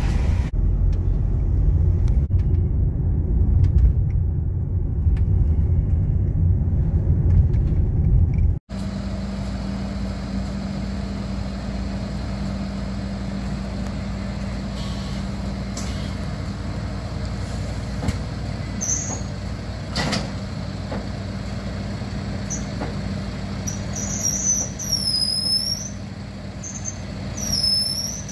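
Low road rumble inside a moving car for about eight and a half seconds, cut off suddenly. Then a steady hum from a parked flatbed recovery truck's idling engine, with birds chirping in the last few seconds.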